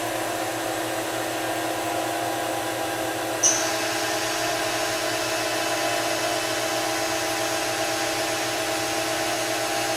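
Mori Seiki SV-40 CNC mill spindle running steadily at a commanded 500 rpm, a hum made of several steady tones, on a machine that has not been run for some time. A single sharp click with a brief high ring comes about three and a half seconds in.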